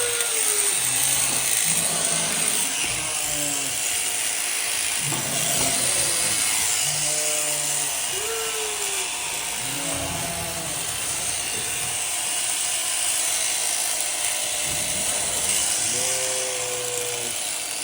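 Electric sheep-shearing handpiece running steadily, with sheep bleating several times over it in short calls that fall in pitch.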